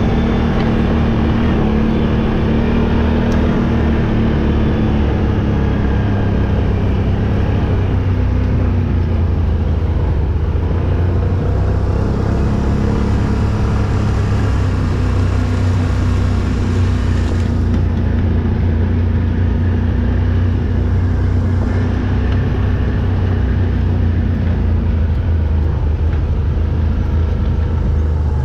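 4x4 vehicle driving off-road, its engine running steadily with a strong low rumble and small rises and falls in engine pitch.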